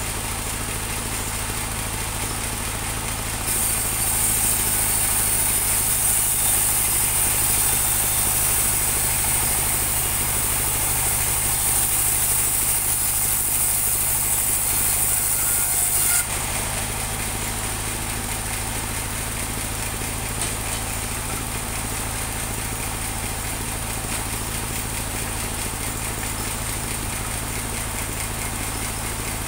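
Engine-driven portable bandsaw sawmill running steadily. A few seconds in, the sound grows louder with a high hiss as the blade cuts through the teak log. It drops back suddenly about halfway through, leaving the machine running without load.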